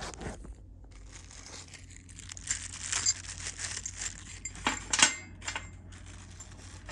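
Plastic packaging crinkling and rustling as a new pin is fished out of it, with two sharp clicks about five seconds in.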